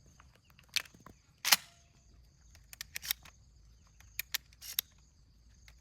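Sharp metallic clicks and clacks from a semi-automatic shotgun being handled, the loudest about a second and a half in, with a cluster of quicker clicks near the four-second mark.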